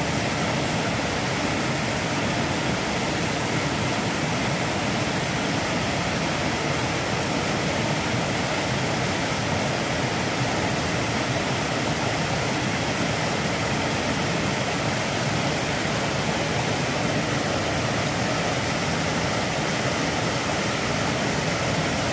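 Whitewater cascade of a rocky stream running high after heavy rain: a steady, unbroken rush of water.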